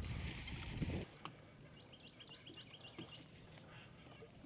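Baitcasting reel clicking as it is wound in against a hooked striped bass, cutting off sharply about a second in. Then a quiet stretch with a quick run of about eight short high chirps.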